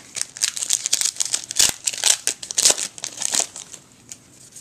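Foil trading-card pack wrapper crinkling as it is torn open and handled: a dense run of sharp crackles for about three and a half seconds, then only a few faint ones.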